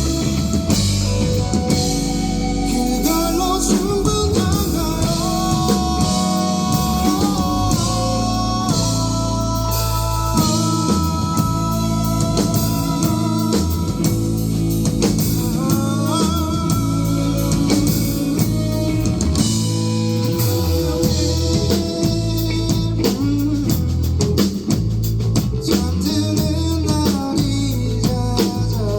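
Live rock band playing: guitars, bass and a drum kit, with a sung melody over them.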